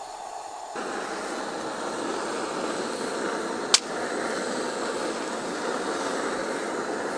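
Handheld gas torch on a gas canister burning with a steady hiss, starting about a second in, as it browns cheese; a single sharp click about halfway through.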